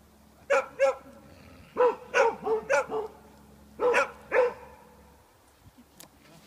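A dog barking: about nine short barks in three quick bursts, two, then five, then two, stopping about halfway through.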